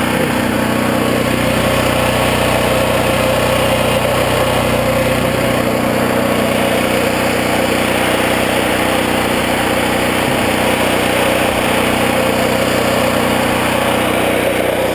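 Dual-fuel portable generator's engine running steadily with an even hum.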